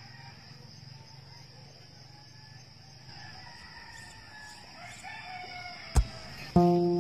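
A rooster crowing faintly over a steady high insect trill. Near the end there is a sharp click, then strummed acoustic guitar music starts.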